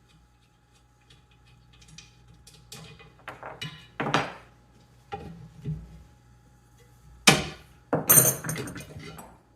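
Metal parts of a small vintage Johnson Iron Horse engine clunking and rattling as they are set into a plastic tote: a series of knocks and clatters, the loudest near the end.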